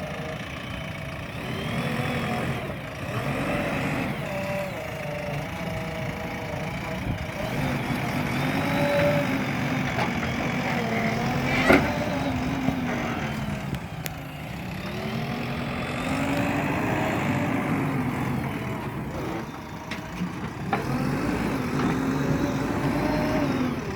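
JCB digger's diesel engine running under working load, its pitch rising and falling in long swells every few seconds as the machine works, with one sharp knock about halfway through.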